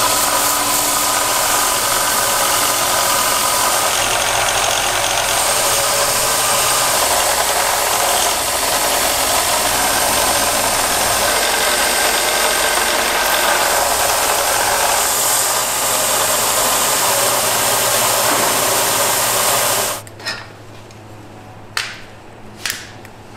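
Bench belt grinder running as a steel sword blade is ground against the abrasive belt: a loud, steady grinding noise. About twenty seconds in it cuts off abruptly, leaving a much quieter background with a few short clicks.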